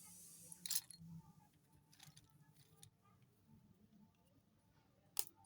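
Slate pencils snapping with sharp, brittle cracks: one about three-quarters of a second in, a smaller one about two seconds in, and the loudest near the end, with faint small ticks between.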